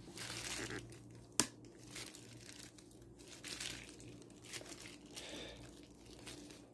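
Faint rustling and crinkling handling noise, with a single sharp click about a second and a half in.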